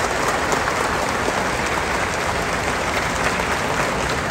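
An audience applauding, steady clapping from many people.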